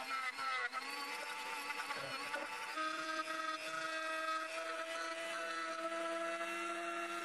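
Small handheld rotary tool whining as its bit grinds and sands a small resin piece. Its pitch wavers as the resin is pressed against the bit, then from about three seconds in it runs at a steady pitch.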